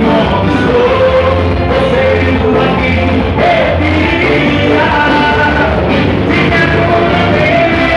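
A live dance band playing loud through a PA, a singer's voice over a steady bass-and-drum beat.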